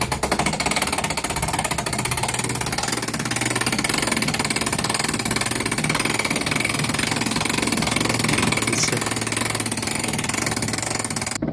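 Hand-cranked cable winch being wound with its gear engaged, a fast, steady clicking rattle, as its cable pulls a roll-off observatory roof along. It cuts off abruptly near the end.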